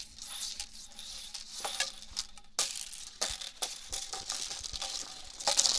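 Hula hoop being spun in hula-hooping: a continuous rasping, rattly swish with many small sharp clicks, growing louder near the end.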